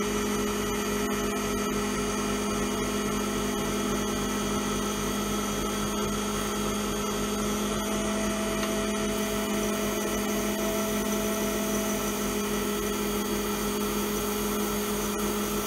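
Lathe running steadily with a steady hum, spinning an Alumilite resin pen blank on a mandrel while a turning tool takes a cutting pass and peels off plastic shavings.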